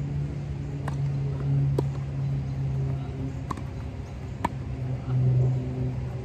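Tennis ball struck by rackets and bouncing on an artificial grass court during a rally: sharp pops about a second or two apart, four of them clear. Under them runs a steady low hum, the loudest sound, swelling twice.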